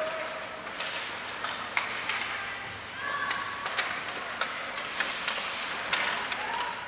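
Ice hockey play: skates scraping the ice and sharp clicks of sticks striking the puck and ice, scattered throughout, over a steady hum of rink noise, with a few voices calling out.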